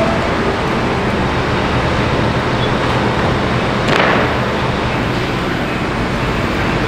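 Hyundai HX480L excavator's diesel engine running steadily, with a brief louder rush of noise about four seconds in.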